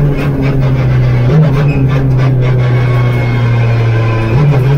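Hyundai Veloster N TCR race car's turbocharged four-cylinder engine heard from inside the cabin, holding a steady drone at speed. Its pitch briefly steps up about a second and a half in and again near the end.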